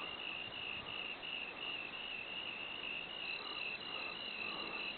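Cricket chirping steadily in a high, evenly pulsed trill, about three chirps a second.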